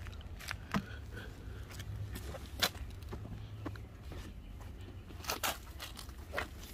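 A cloth rag wiping quick-detailer spray off a car's painted door: scattered short rubbing and scuffing sounds over a steady low rumble.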